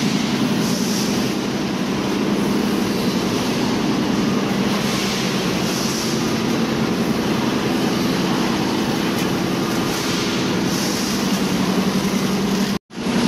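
Bottled-water production line machinery running: a steady mechanical hum from the conveyors and machines, with soft hisses every few seconds. The sound cuts out completely for an instant near the end.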